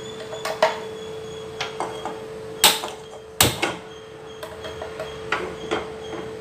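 Sharp clicks and metal knocks as a gas stove burner is lit and an aluminium kadai is handled on its pan support, the two loudest a little before the middle, over a steady hum.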